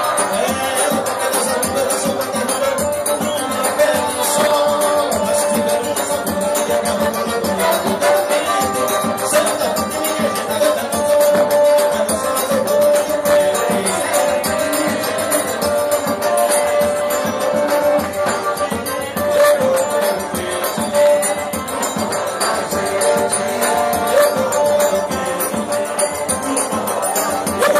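Live forró pé-de-serra trio playing: a piano accordion carries the melody in long held notes over the steady beat of a zabumba bass drum and a ringing triangle.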